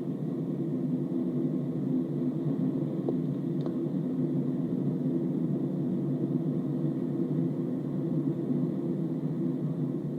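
Steady low rumble of a Hino bus's diesel engine and road noise, heard from inside the cabin while riding, with a faint click about three and a half seconds in.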